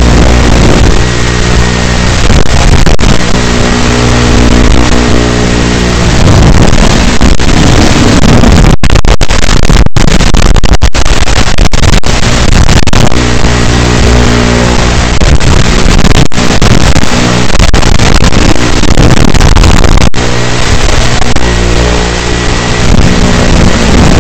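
Small FPV quadcopter's brushless motors and propellers whining loudly in flight. The pitch rises and falls with the throttle, and a rough, noisy stretch runs through the middle. The audio cuts out for an instant a few times.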